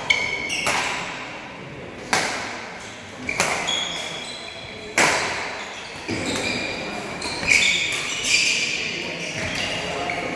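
Badminton rally in a sports hall: four sharp racket strikes on the shuttlecock in the first five seconds, echoing in the hall. Court shoes squeak on the floor throughout, most busily in the seconds after the last strike.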